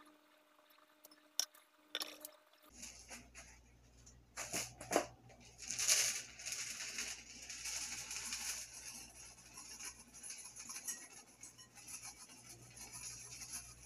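A kitchen knife slicing cucumber on a wooden end-grain cutting board, a few sharp clicks of the blade against the board. Then faint kitchen handling: a couple of knocks, followed by a soft hiss and light taps.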